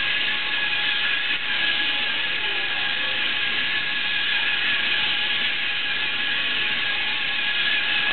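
The two servo motors and gear trains of a LEGO Mindstorms NXT robot running steadily, a continuous mechanical whirring with a thin whine over a hiss.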